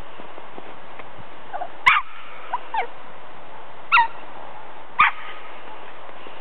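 Small puppies yipping: about six short, high barks that fall in pitch, the loudest about two seconds in, over a steady background hiss.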